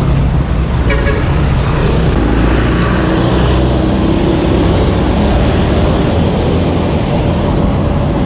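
Steady road traffic noise from cars and a box truck passing close by in the next lane, heard from a bicycle riding alongside.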